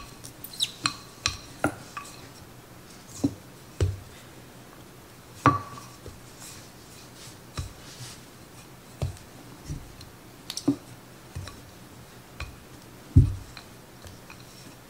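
Wooden rolling pin rolling out bread dough on a counter: irregular light knocks and clicks, about a dozen, the loudest about five and a half seconds in and again near the end, over a faint low hum.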